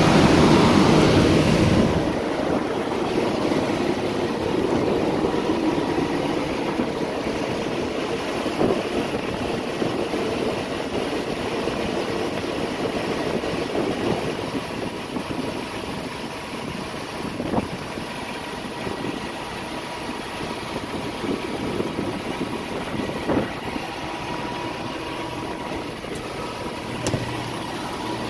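Semi truck's diesel engine idling steadily, louder and heavier for the first two seconds, with a few light clicks.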